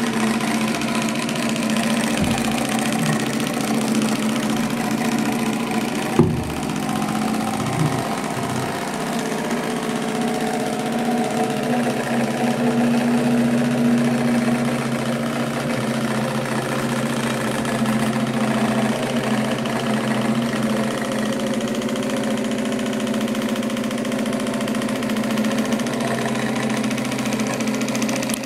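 A small motor humming steadily, with one sharp click about six seconds in.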